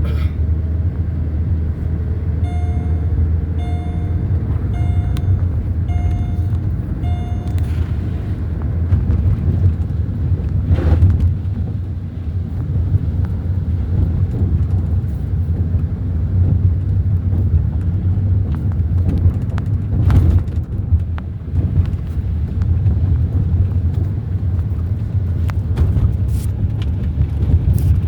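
Steady low rumble, like a vehicle running, with five short electronic beeps about a second apart early on.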